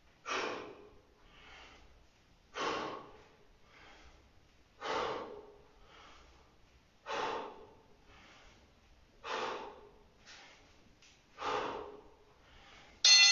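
A man's forceful exhalations with each squat, six of them at an even pace of about one every two and a quarter seconds, with quieter in-breaths between. Just before the end an interval-timer beep starts.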